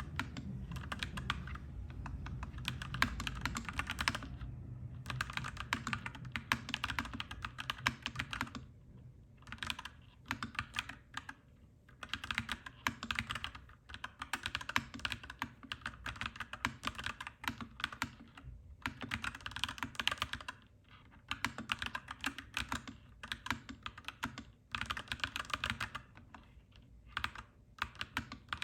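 Clacky mechanical keyboard typing in quick runs with short pauses between them. A low rumble sits under the typing and fades after about eight seconds.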